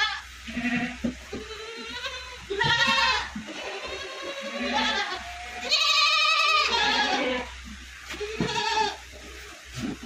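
Young goat kids bleating again and again, a string of wavering calls, the loudest and longest about six seconds in.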